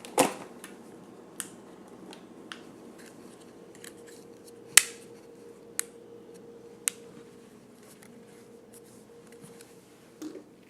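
Scattered sharp plastic clicks and taps from handling a small toy quadcopter, with the loudest click about halfway through. A faint steady hum runs underneath.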